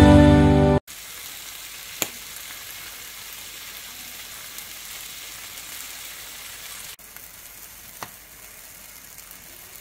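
Ham slices sizzling in a frying pan, a steady hiss, with two brief sharp taps, one about two seconds in and one near the end.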